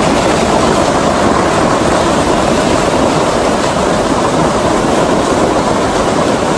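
Hailstorm: hail and heavy rain pelting down in a loud, dense, steady din of countless impacts.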